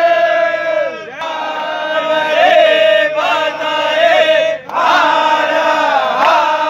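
A team huddle of men chanting a rallying cry together. The long, drawn-out shouts come in unison, with short breaks about a second in and again about two-thirds of the way through before they start up again.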